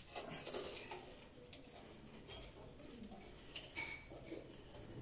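Small hard objects clinking and knocking against each other in irregular handling, with one brief metallic ring near the end.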